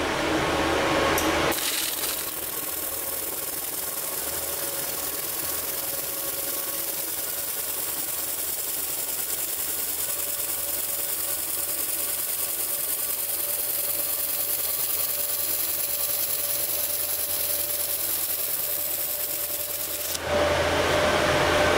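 Handheld fiber laser welder running a weld bead on stainless steel plate: a steady hiss that starts about a second and a half in and cuts off suddenly near the end. The wobble is set to a slow 10 Hz, putting a lot of heat into the steel.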